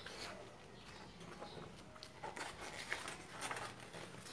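Glossy pages of a thick photobook being turned by hand: a few faint paper swishes and rustles.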